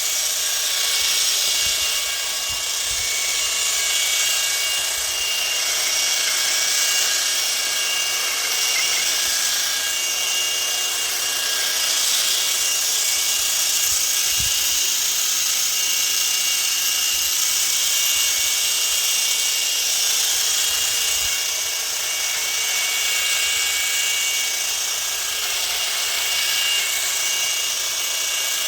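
Hedge trimmer attachment of a Parkside 40 V brushless cordless multi-tool running continuously at a steady speed, with a high whine over its blade noise.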